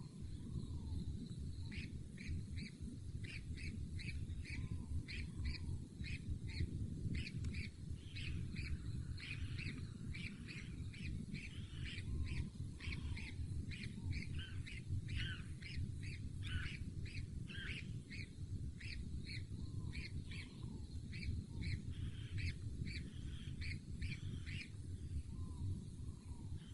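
Bird calling in a long, rapid series of short, high chirps over a steady low rumble.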